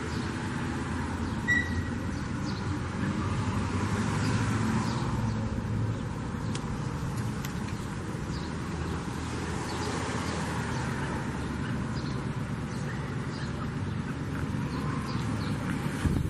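Steady low rumble of road traffic, with a few short, faint bird chirps over it and one brief clear note about a second and a half in.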